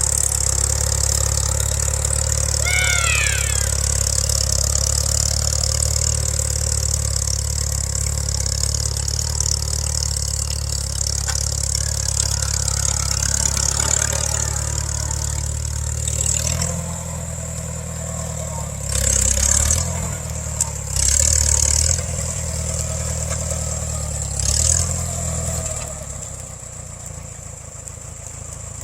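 Farmall 140 tractor's four-cylinder gasoline engine running steadily under load while pulling a stump, then revving up in three short surges about two-thirds of the way through before settling to a lower, quieter run near the end. A brief high squeal is heard about three seconds in.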